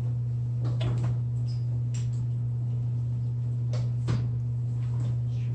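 A steady low electrical hum, with a few short scratches of a dry-erase marker drawing boxes on a whiteboard.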